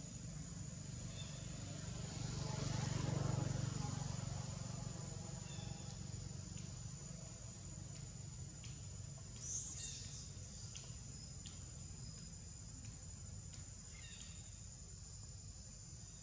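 Faint outdoor ambience: a steady high insect drone over a low hum, the hum swelling and fading about three seconds in. A short high chirp comes near the middle, with a few scattered light ticks.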